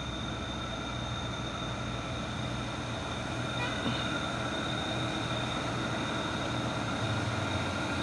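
Heavy truck's diesel engine running steadily under load as it climbs, a low drone that slowly grows louder.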